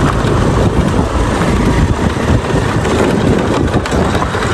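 Honda Activa scooter's small single-cylinder engine running as it rides over a gravel dirt track, with a steady uneven rumble of tyres on gravel and wind on the microphone.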